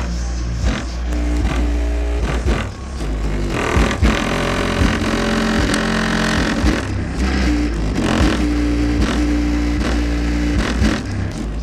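Loud bass-heavy music played through a 500 W RMS car subwoofer, with a deep pounding bass line. The Skoda Octavia's undeadened body panels buzz and rattle under the bass.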